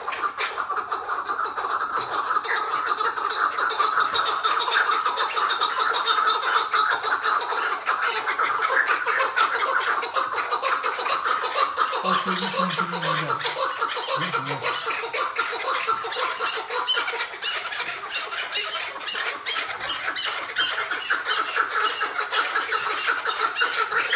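Chukar partridges giving their continuous rapid chattering call, the low busy chatter known as hıngırma. Two brief low-pitched sounds come about halfway through.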